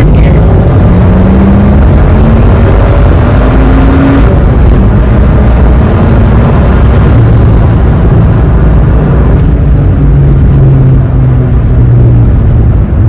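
BMW N55 turbocharged inline-six, swapped into an E46, pulling under acceleration, heard from inside the cabin. Its note climbs in pitch for the first four seconds or so, then drops and settles into a steadier drone over loud road rumble.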